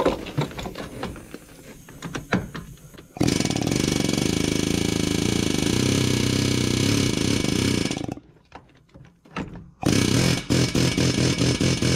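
Pneumatic air chisel hammering on a rusted exhaust manifold bolt to break up the rust that seizes the bolt's shank to the manifold. It goes in short bursts at first, then one long steady run of about five seconds, a brief pause, and another run of bursts near the end.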